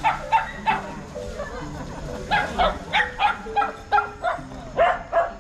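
Shetland sheepdogs barking: sharp, high barks in quick runs, about three a second. The barking pauses for about a second and a half near the start, then picks up again.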